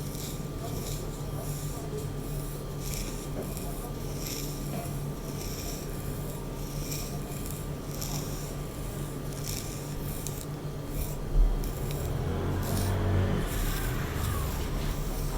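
Hairbrush strokes rasping through hair, a regular run of short brushing swishes at about two a second, over a steady low hum. About eleven seconds in there is a single thump, followed by slower, duller rubbing.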